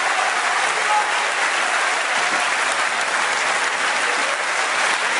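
Audience applauding, a steady, dense clapping that holds throughout.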